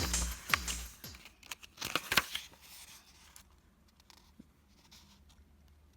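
Paper rustling and crinkling in a few quick rasps and clicks over the first three seconds, like a page being handled or torn. In the first second the last of a run of deep electronic booms dies away, each falling in pitch.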